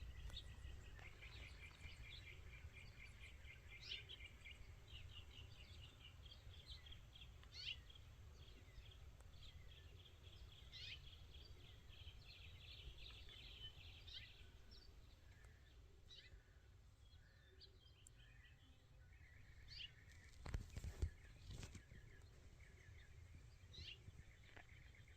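Faint outdoor birdsong: repeated high trilling calls from small birds over a low steady rumble, with a few soft knocks about twenty seconds in.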